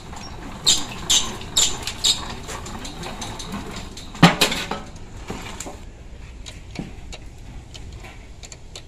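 Metal clinks and rattles of a thin sheet-metal insulation jacket being worked on a hand-operated slip roll machine and handled: four sharp clinks in the first two seconds, a louder clang about four seconds in, then lighter ticks.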